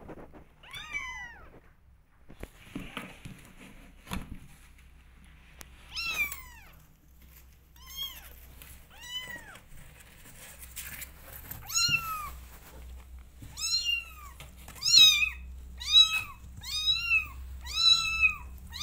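Young kittens meowing repeatedly: about ten high calls, each rising and falling in pitch, sparse at first, then closer together and louder in the second half. A few soft knocks and rustles come between the first calls.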